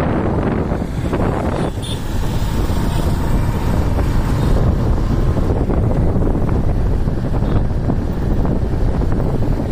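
Wind buffeting the microphone of a moving open vehicle, over a steady rumble of engine and road noise from the surrounding motorbike traffic.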